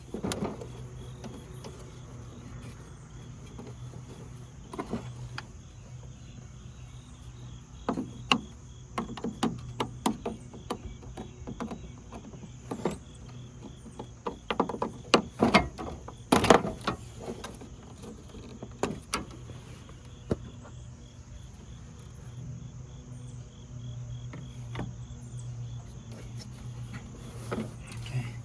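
Scattered clicks, taps and knocks of hand tools and plastic trim being worked loose while a car headlight is removed. They are densest in the middle, the loudest about sixteen seconds in, over a steady low hum.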